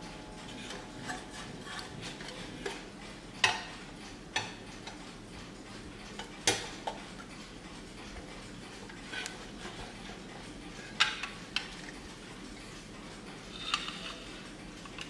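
Tin toy wind-up clock being handled and turned over: irregular light metallic clicks and knocks, a few sharper ones, with a short clatter near the end as it is set back down on the table.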